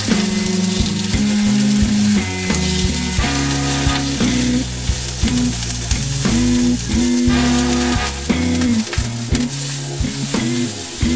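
Zucchini slices sizzling in hot olive oil in a frying pan, a steady hiss, under background music of held notes over a bass line.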